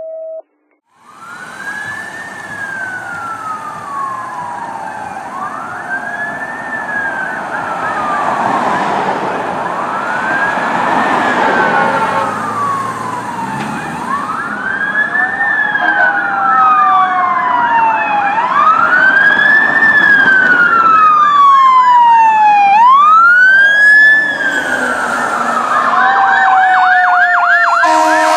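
Fire truck sirens wailing, more than one at once, each rising and falling in pitch every four to five seconds and growing louder as the trucks approach. Near the end the siren switches to a fast yelp.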